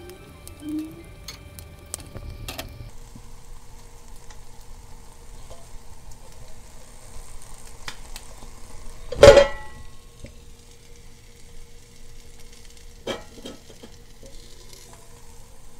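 Egg sizzling in a cast-iron pan over a homemade tuna-can alcohol stove, with small clicks, then the stove burning on its own. A loud metallic clank that rings briefly about nine seconds in, and a smaller knock about thirteen seconds in as a tin can is set down over the stove to snuff out the flame.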